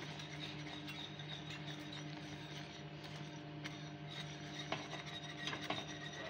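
Caramel sauce bubbling in a stainless steel pan while a spatula stirs and scrapes it, with faint scattered ticks. A steady low hum runs underneath.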